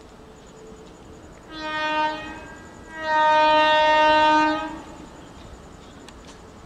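WAG-7 electric locomotive's horn sounding as it approaches at the head of a loaded container freight train: a short blast about a second and a half in, then a longer, louder blast from about three seconds to nearly five, over the low rumble of the moving train.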